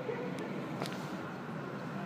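Steady hiss and low hum of a Boeing 737-700's CFM56-7 jet engines idling as the airliner taxis in to the gate, with two faint clicks within the first second.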